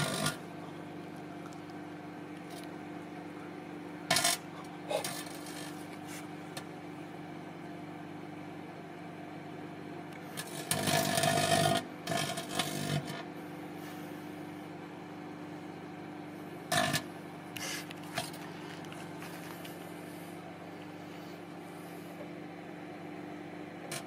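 Microwave oven running with a steady hum, broken by sudden crackling bursts of sparking inside it: one at the start, two short ones a few seconds in, a longer one lasting about two seconds midway, and two brief ones later on.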